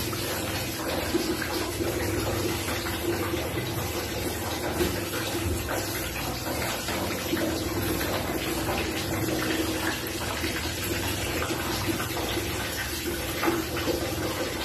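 Handheld shower head spraying a steady stream of water onto a cat in a bathtub, a continuous hiss and splash of running water.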